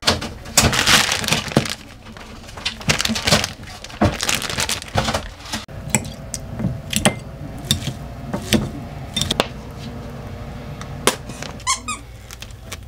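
Kitchen food-prep sounds: a plastic bread bag crinkling and rustling, then a metal egg masher clinking and tapping against a ceramic bowl as boiled eggs are mashed. A brief squeak near the end.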